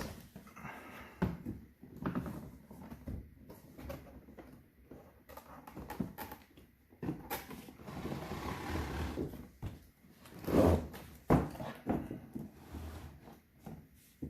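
Cardboard packaging being handled and its contents slid out of the outer box: scattered knocks and taps, a drawn-out scrape of cardboard on cardboard about eight seconds in, and the loudest knock shortly after.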